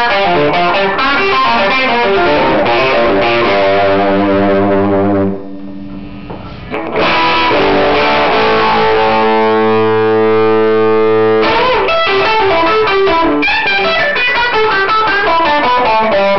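Gibson Les Paul electric guitar played through a 1960s DeArmond R15T tube amplifier with two 6V6 power tubes and a 12-inch speaker. Quick picked runs, a chord left ringing about four seconds in, another chord struck about seven seconds in and held for several seconds, then more fast picking.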